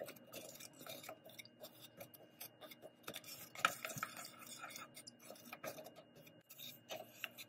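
Wooden spatula stirring and pushing lumps of jaggery around in water in a stainless steel pan: irregular light knocks and scrapes of wood and hard lumps against the metal.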